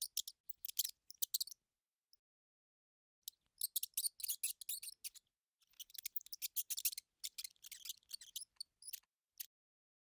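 Scurrying-mouse sound effect: rapid high-pitched clicks and scratches in three bursts with short silent gaps between.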